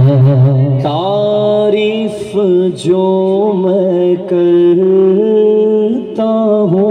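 A man singing a naat, a devotional song in praise of the Prophet, into a microphone without instruments, holding long wavering notes in phrases with short breath breaks. A steady hummed drone from a second singer runs beneath the melody.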